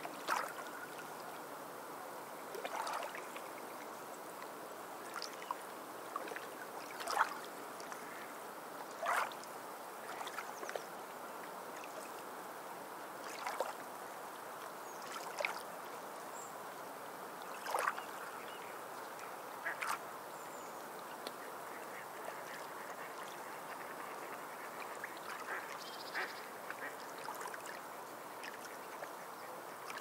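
Small sea waves washing against shoreline rocks: a steady wash of water with short, irregular slaps and splashes every couple of seconds.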